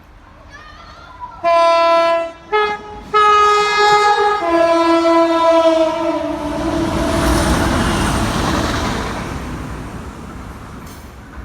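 A passing train sounds its horn: a short blast, a brief blip, then a longer blast that drops in pitch partway through. The rush of the train going by follows, swelling and then fading away.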